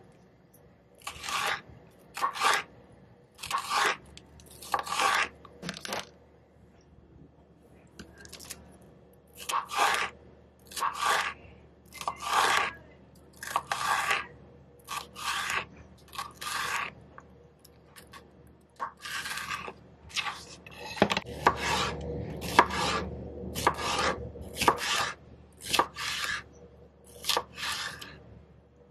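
A chef's knife slicing bell peppers into strips on a plastic cutting board. Each stroke is a short crisp cut ending in a tap on the board, about one a second, with a couple of short pauses.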